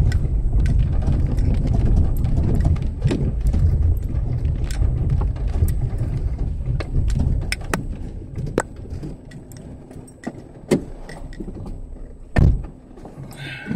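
Car cabin sound while driving slowly over a rutted, muddy dirt road: low engine and road rumble with scattered clicks and knocks. The rumble eases off about eight seconds in, and one heavy thump comes near the end.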